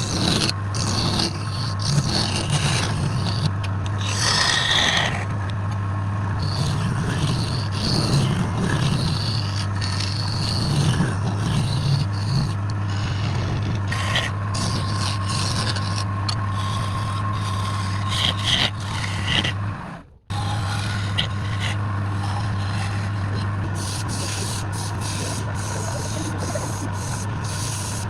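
Wood lathe running with a steady motor hum while a tool or abrasive scrapes against the spinning wood. The sound cuts out for a moment about two-thirds of the way through.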